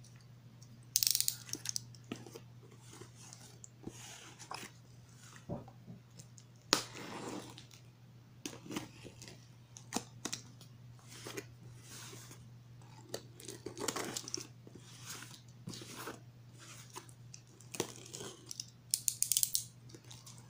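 A blade slitting the packing tape on a cardboard shipping box, with irregular scrapes, taps and handling of the cardboard; sharper tape-tearing rips come about a second in and again near the end.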